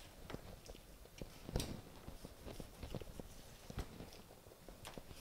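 Kitchen knife slicing raw pork leg into strips on a cutting board: scattered soft knocks as the blade cuts through and meets the board, one sharper knock about one and a half seconds in.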